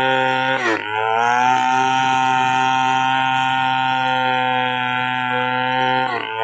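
Chainsaw running at high revs. Its pitch dips sharply twice, a little under a second in and again near the end, then climbs back each time.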